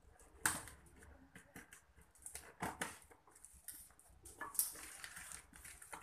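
Cardboard box being cut with scissors and torn open by hand: a run of rustling, scraping and sharp tearing crackles, loudest about half a second in and again around four and a half seconds.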